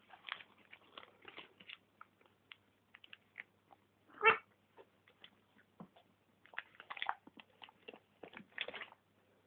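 Dog tearing and rustling the wrapping paper on a present, a quick irregular crinkling and crackling, with one short, loud pitched sound about four seconds in.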